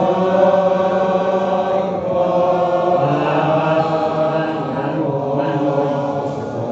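Voices chanting together in long held notes: devotional chant accompanying Sufi whirling, shifting pitch a few times.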